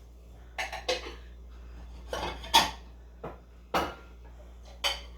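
Pot and kitchen utensils knocking and clinking as they are handled, about six separate sharp knocks with the loudest about halfway through.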